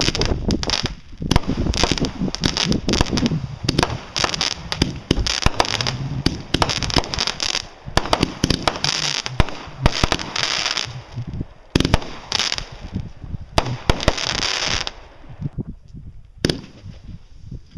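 Fireworks going off in rapid succession: a dense run of sharp bangs and crackling, one burst on top of the next, easing to a brief lull about fifteen seconds in before scattered pops resume.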